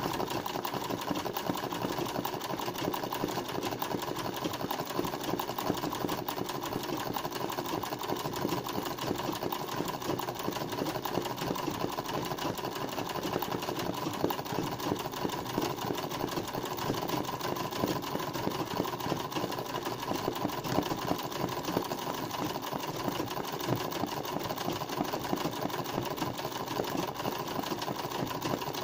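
Straight-stitch sewing machine running steadily at speed for freehand 'kara makine' embroidery, its needle mechanism making a fast, even stream of ticks.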